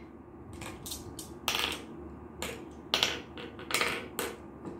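Glass marbles clicking and clinking as they are picked up and dropped one at a time into the pits of a wooden Gurpale (mancala) board. The clicks are light and come at uneven spacing, about ten in all: the sowing of one turn.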